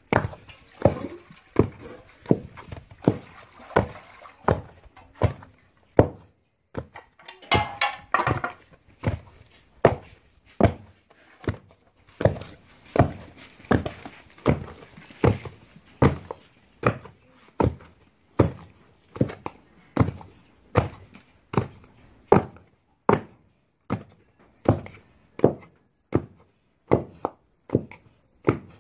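Wooden pestle pounding boiled cocoyams into a soft, sticky achu paste in a mortar: a steady run of dull thuds, a bit over one a second.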